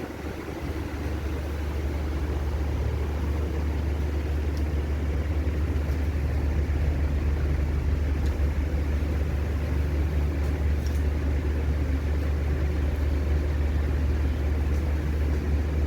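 A steady low mechanical hum or rumble, growing a little louder over the first couple of seconds and then holding steady, with a few faint clicks.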